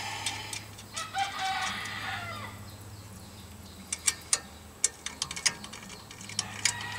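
A rooster crows once, about a second in. In the second half come a series of irregular sharp metallic clicks from tools working the ball joint nuts as they are nipped up.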